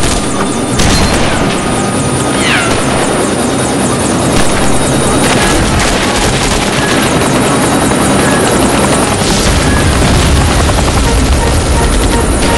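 Action-film battle sound effects: rifles firing in rapid, continuous automatic bursts, loud and dense, with a short falling whistle about two and a half seconds in.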